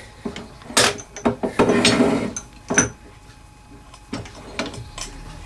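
Metal parts of a wood lathe being handled: a few sharp clicks and knocks and a short sliding scrape about halfway through, like a part being moved and locked on the lathe.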